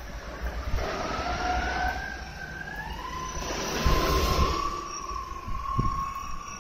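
Electric stacker's drive motor whining as it travels, the pitch climbing at first and then holding steady, over a low rumble from the wheels rolling on concrete.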